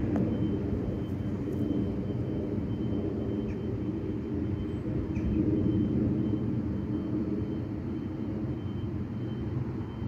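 A steady low rumble throughout, with a faint high steady tone running along above it.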